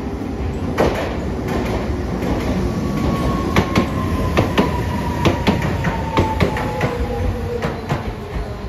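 Hiroshima Electric Railway 3950-series 'Green Liner' tram running past close by as it slows for the stop: its wheels click in pairs over the rail joints over a steady rumble, and a faint whine falls slowly in pitch as it brakes.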